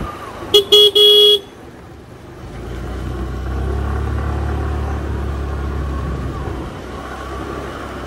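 A vehicle horn beeps three times about half a second in, two short toots and then a longer one. After that a steady low rumble of the ridden bike's engine and road noise.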